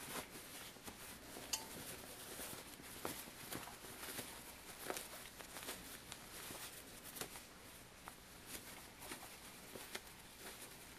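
Faint rustling of a small piece of cotton fabric being handled and turned right side out, with soft scattered clicks.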